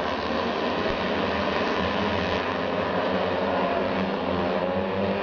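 Many racing engines running together: a steady, dense drone with several wavering pitches.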